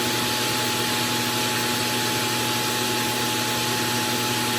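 Robot vacuum's auto-empty dock (iRobot Roomba Plus 507 Combo) running its suction motor at full power: a loud, steady rush of air with a steady whine, as it sucks the dirt out of the robot's dustbin.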